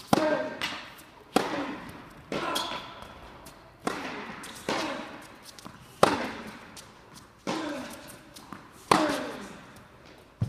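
Tennis ball struck by rackets and bouncing on a hard indoor court during a baseline rally. About eight sharp pops come roughly a second apart, each echoing on in the large hall.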